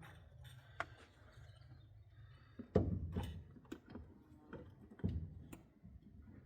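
Scattered light clicks and knocks of a new generator's parts and fittings being handled, the loudest about three and five seconds in, over a faint low hum.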